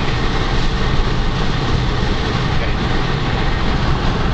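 Steady road and engine noise of a car driving along a highway, heard from inside the cabin.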